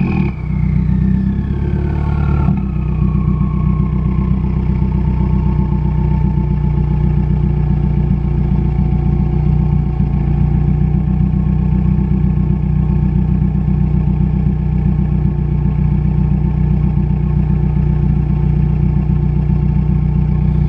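2015 Subaru WRX's turbocharged FA20 flat-four, with a catless J-pipe and single-wall axle-back exhaust, idling steadily at a stop, heard close to the exhaust tip. A high whistle falls in pitch and fades over the first several seconds.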